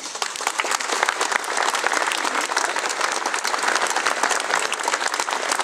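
A crowd applauding: many people clapping at once in a dense, steady patter.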